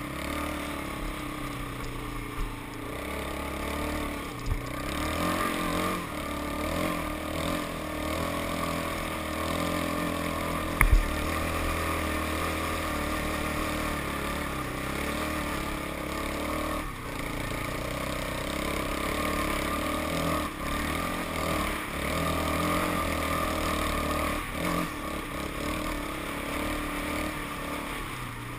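Quad bike (ATV) engine running close up, the throttle rising and falling as it rides sandy trails, with rattles from the machine. A sharp knock about eleven seconds in.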